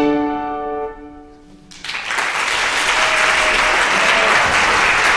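Two violins and a piano end on a held final chord that fades away. About two seconds in, the audience breaks into steady applause.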